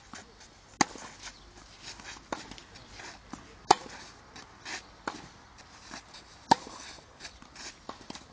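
Tennis racket striking the ball in a baseline rally on a clay court: three loud, sharp hits about three seconds apart, with fainter knocks in between.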